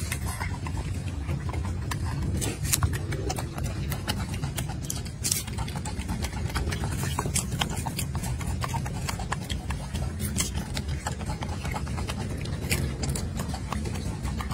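Golden snub-nosed monkey chewing fruit close to the microphone: a dense, irregular run of sharp clicks and smacks over a steady low rumble.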